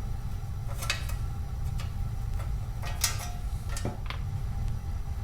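A few light metallic clicks and short scrapes as the chrome chain guard and cleaning things are handled, over a steady low hum.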